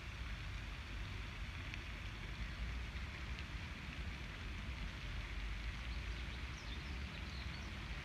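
Steady outdoor background noise, an uneven low rumble under a hiss, with a few faint high bird chirps a little over six seconds in.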